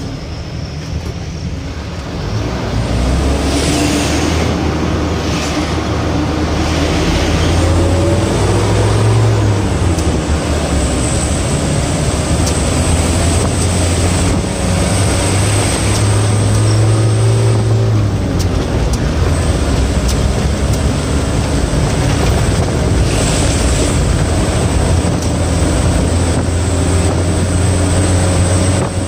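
Truck's diesel engine running hard, heard from inside the cab along with road noise. The engine note shifts up and down in pitch a few times, with a thin high whine above it.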